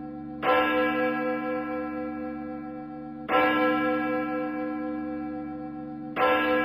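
A single church bell tolling: three strikes about three seconds apart, each ringing on and still humming when the next one lands.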